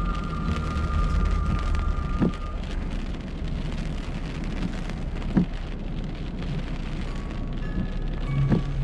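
Heavy rain pattering on a moving car's windshield and roof over a low road rumble, with a short thump about every three seconds.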